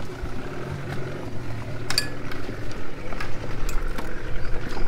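Small inflatable dinghy's outboard motor idling low, with a few sharp metallic clinks, the clearest about two seconds in.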